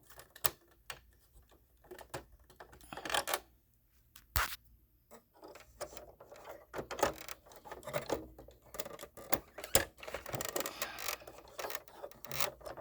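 Plastic clicks, knocks and scraping as an ink cartridge is handled and pushed into the carriage of an HP DeskJet inkjet printer. There is a sharp click about four and a half seconds in, another near ten seconds, and busier handling noise just after.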